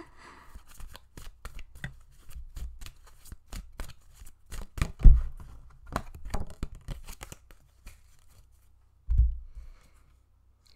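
A deck of cards being shuffled by hand: a quick run of short crisp card clicks and flicks, with a louder knock about five seconds in and a soft low thump near the end.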